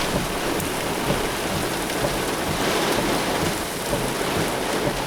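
Heavy thunderstorm rain pouring down steadily as an even hiss, with gusting wind, swelling a little about halfway through.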